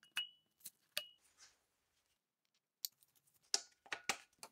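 Faint clicks and taps of small metal parts being handled and fitted together while reassembling an angle grinder. Two of the early clicks carry a short metallic ring, and a quicker run of taps comes near the end.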